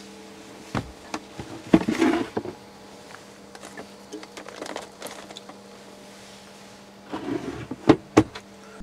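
A portable car fridge being opened and shut: knocks and rattles about two seconds in as the lid comes up, handling noise as a can is taken out, then two sharp clicks near the end as the lid latches. A steady low hum runs underneath.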